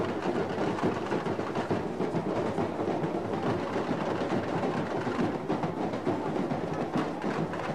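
Samba school drum section (bateria) playing a dense, steady samba rhythm.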